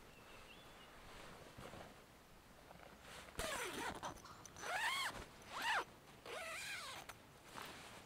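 Zipper on a hammock's mosquito net being pulled in several quick strokes, each rising and falling in pitch, starting about three and a half seconds in.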